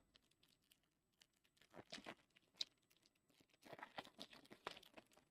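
Faint crinkling and tearing of trading-card packaging being opened by hand, in two short spells of crackle.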